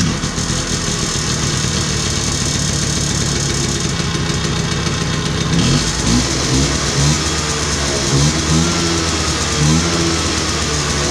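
1988 Vespa PK 50 XL's small two-stroke single-cylinder engine running just after starting, idling steadily, then blipped up in revs several times in the second half. It runs after a new stator has been fitted, so the ignition charging circuit is working.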